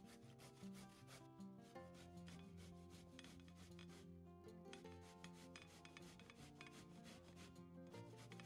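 Faint repeated rasping strokes of raw butternut squash being grated on a stainless steel box grater.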